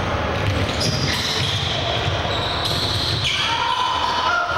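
Basketball game in a gym: the ball bouncing on the hardwood floor and sneakers squeaking as players move, with voices in the hall behind.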